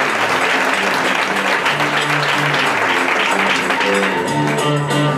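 Theatre audience applauding over music with held low bass notes, which change every half second or so.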